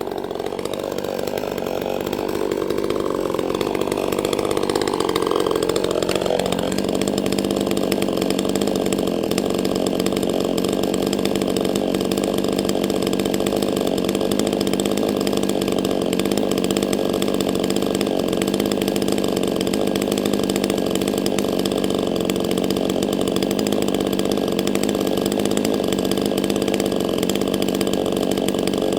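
Neotec NCS6800 68cc two-stroke chainsaw engine running off-cut, its speed wavering for the first six seconds or so, then settling into a steady, even run for the rest.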